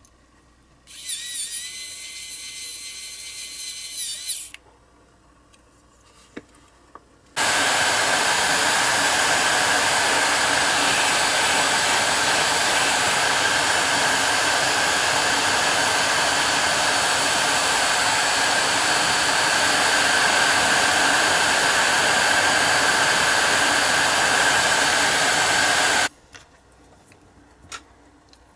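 A pen-style electric precision screwdriver whines for about three seconds as it turns a screw. A few seconds later a heat gun starts blowing, runs steadily for about nineteen seconds while it softens a plastic part, and cuts off suddenly. A few light plastic clicks follow near the end.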